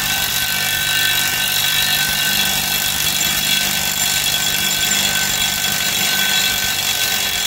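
Cordless impact wrench running steadily, hammering on a 1-1/16-inch socket to back off an outboard's brass propeller nut.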